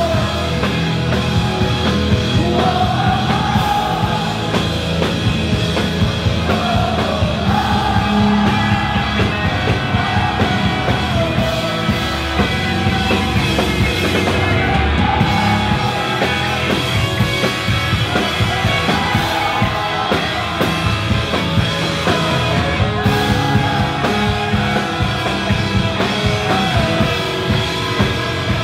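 Live punk rock band playing loudly: electric guitars, bass and drums under shouted singing, a sung melody line returning every few seconds.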